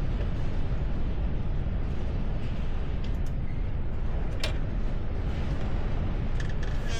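Wind buffeting the microphone: a steady low rumble, with one sharp click about four and a half seconds in.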